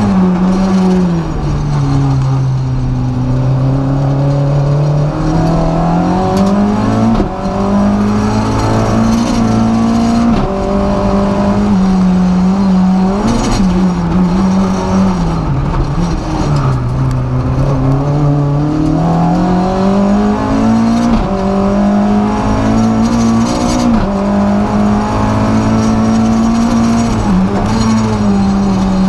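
Renault Clio F2000 rally car's four-cylinder engine at full stage pace, its note climbing and falling again and again as the car accelerates, changes gear and slows for corners.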